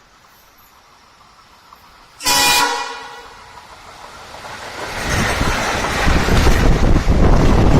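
WDM3A diesel locomotive horn gives one short, loud blast about two seconds in, with an echo trailing off. The rumble of the twin WDM3A diesel locomotives then grows loud as the train comes close.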